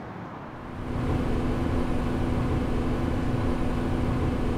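A bus engine running: a low rumble with a steady hum, coming in suddenly about a second in after a quieter stretch.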